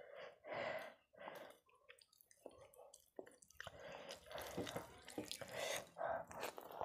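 Wet squishing and smacking of a bare hand kneading soft rice and mashed potato together in a steel bowl, a run of short squelches and clicks.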